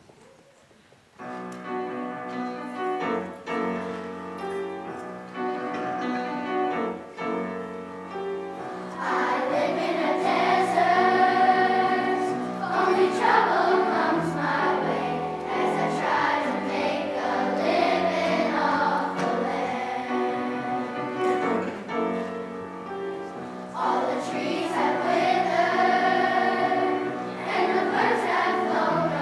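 A piano introduction starts about a second in. At about nine seconds a children's choir comes in singing, with the piano accompanying.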